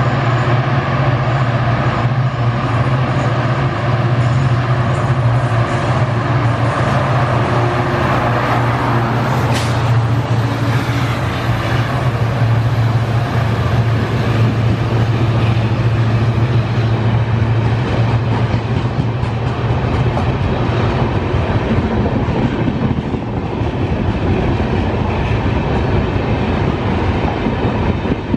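Diesel-hauled train running past, a loud continuous rumble of wheels and coaches over a steady low engine drone, easing a little near the end.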